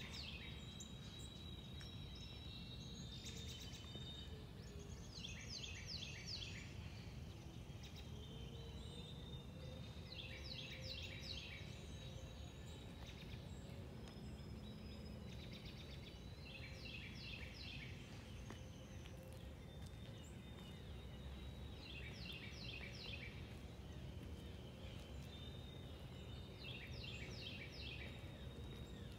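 A songbird repeating a short phrase of quick descending notes about every five to six seconds, with thin high notes between phrases, over a steady low outdoor rumble.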